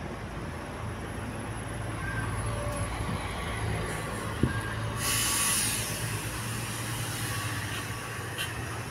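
A large bus engine idling with a steady low hum. A sharp click comes about four and a half seconds in, followed by a short burst of compressed air hissing, like an air brake release.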